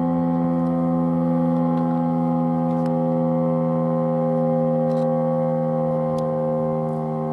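Federal Signal STH-10A dual-tone siren sounding a steady alert tone: a held chord of two pitches with no rise or fall.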